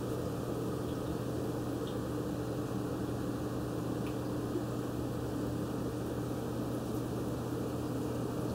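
Steady low hum of running aquarium equipment, with a constant faint watery hiss and no distinct events.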